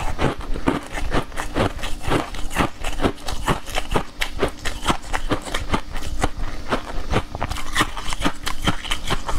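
Close-up chewing and wet mouth smacks of a person eating a soft cake coated in green powder, a steady run of clicky smacks about two to three a second.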